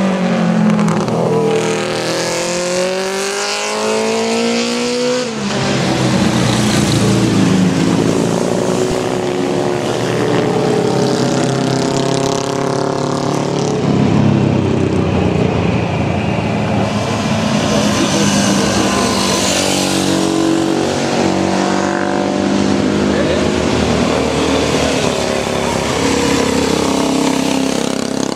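Vintage racing motorcycles ridden one after another through mountain road bends, their engines running hard with pitch rising and falling as they pass.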